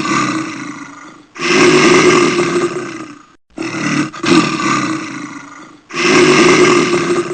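A big cat roaring again and again: one roar dies away at the start, then three more follow, each about two seconds long.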